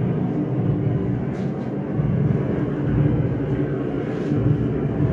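Air-raid sound effect: a steady, loud low drone of aircraft engines overhead.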